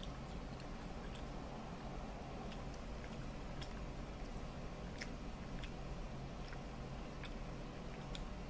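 Close mouth sounds of a person biting into and chewing tandoori chicken off the drumstick, with scattered sharp wet clicks and smacks over a steady low background hum.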